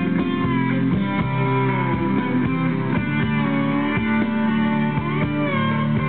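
Rock band playing a slow instrumental introduction: electric guitar with gliding slide notes over sustained chords and a steady beat.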